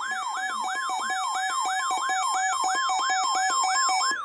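Weather radio alert alarm: a siren-like tone sweeping rapidly downward about four times a second, with a steady tone beneath it. It sounds as the radio receives a new severe thunderstorm warning.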